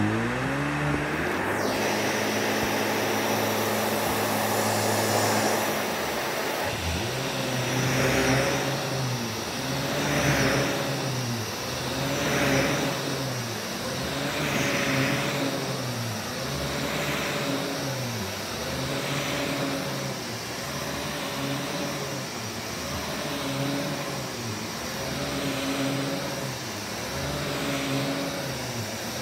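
Vax Commercial VCU-03C upright vacuum cleaner running on carpet. From about seven seconds in it is pushed back and forth, and the motor's pitch and the suction hiss swell and dip with each stroke, about one stroke every two seconds.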